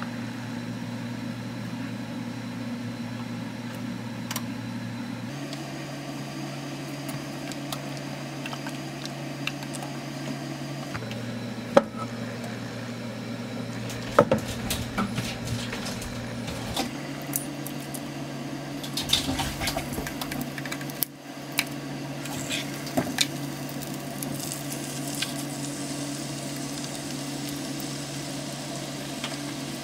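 Pots, pans and utensils clinking and knocking over a steady low hum, with scattered sharp clicks.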